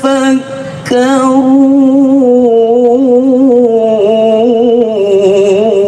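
A man recites the Qur'an in melodic tilawah style, drawing out long, ornamented notes. There is a short break about a second in, then one long held line that steps down in pitch, with wavering turns near the end.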